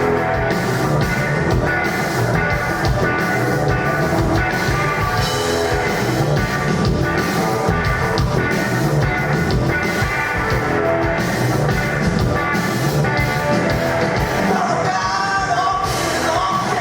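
Three-piece rock band playing live on electric guitar, bass and drum kit: loud, steady full-band music with regular drum hits.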